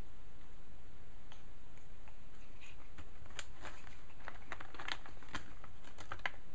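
Cats crunching dry treats: irregular sharp crunches and clicks, thickest in the second half.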